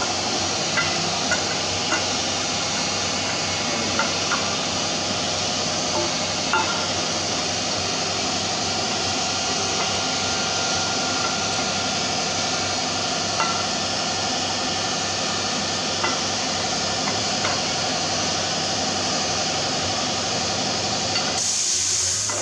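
Light metallic clicks and clinks of a 12-valve Cummins camshaft being worked out of the block through the gear housing, scattered every second or two over a loud, steady rushing noise.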